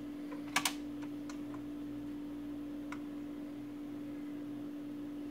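Dual 1009 SK2 idler-drive turntable running with a steady low hum. A pair of sharp mechanical clicks comes about half a second in, then a few faint ticks.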